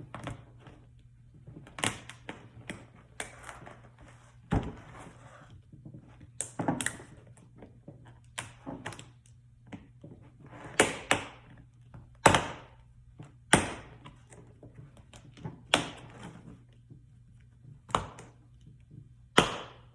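Staples being popped out of a car armrest console shell by hand tools: irregular sharp clicks and knocks, about a dozen of them, spaced a second or two apart, over a low steady hum.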